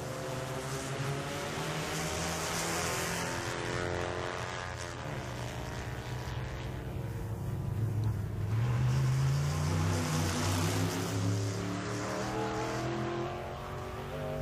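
Car engine running at road speed with wind and road noise; its pitch falls about four seconds in, then climbs and grows louder as it accelerates in the second half.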